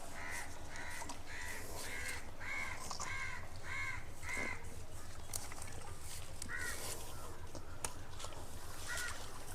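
Crow cawing: about seven harsh caws in quick even succession over the first four and a half seconds, then two more single caws later.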